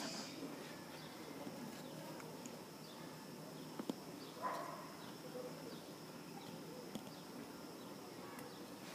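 Faint steady high-pitched insect chirring. A couple of sharp clicks and a short chirp come about halfway through.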